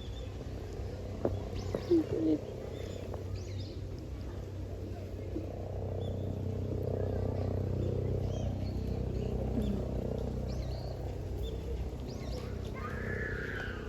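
A cat purring close by, with a steady low rumble that swells in the middle, a few short louder sounds about two seconds in, and faint high chirps.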